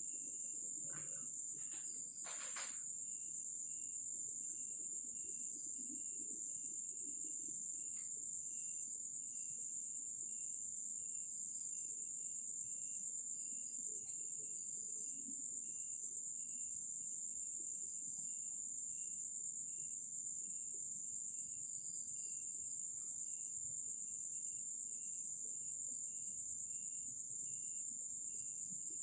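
Night insects: crickets chirring in a continuous high trill, with a second, lower insect chirping in an even, repeated pulse beneath it. A few short soft knocks come about two seconds in.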